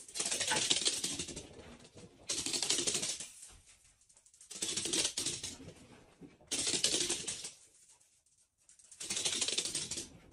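Small pets' paws and claws skittering and clattering on a wooden floor, in about five bursts of rapid clicking roughly two seconds apart, with near quiet between them.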